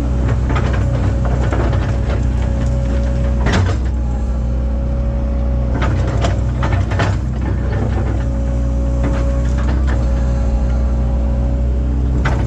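Link-Belt excavator's diesel engine running steadily under work, with a steady whine over the engine drone. A few sharp knocks and clunks come at irregular moments as the machine digs.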